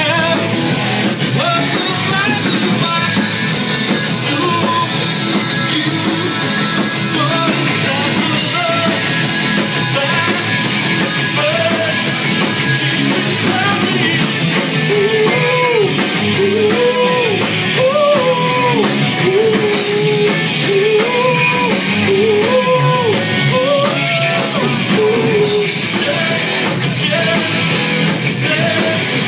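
Live rock band playing: electric guitars and drums at a steady, loud level, with a man's sung vocal line that comes to the fore about halfway through.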